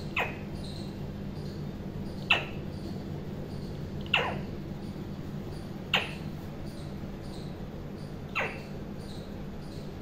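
Alexandrine parakeet giving short squeaks, each a quick falling call, five times about two seconds apart, over a steady low hum.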